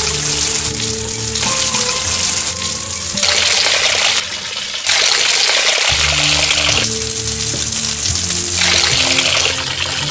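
Running water hissing steadily, with background music of long held notes playing over it.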